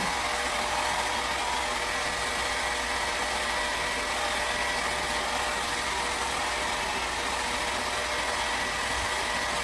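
Revlon hair dryer running steadily while drying hair: a constant rush of blown air with a faint steady whine from its motor and fan.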